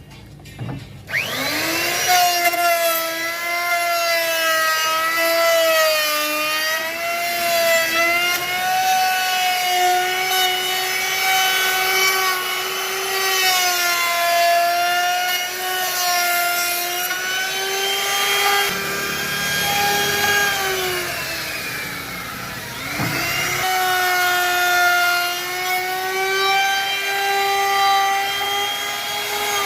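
Handheld electric woodworking power tool spinning up with a rising whine and cutting wood, its pitch dipping and wavering as it works. About 22 seconds in it winds down, then it is started again straight away.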